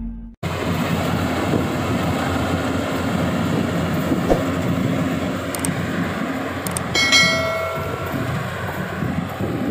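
Rice combine harvester running steadily at work, its engine and threshing noise heard from a little way off. About seven seconds in, a brief high-pitched tone sounds for under a second.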